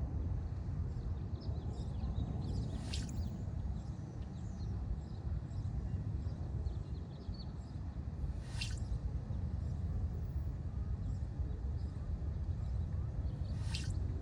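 A small bird giving short, liquid calls that sound like water dripping: three of them, about five seconds apart, with fainter chirps in between, over a steady low background rumble.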